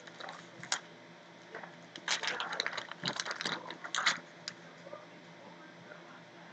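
Trading cards being handled and flipped through: bursts of light rustling and clicking, densest in the middle, then quiet.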